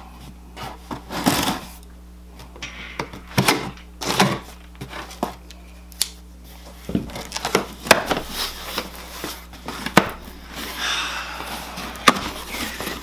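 Scissors cutting through packing tape on a cardboard box: irregular clicks, scrapes and tearing, then cardboard rustling as the box is pulled open near the end.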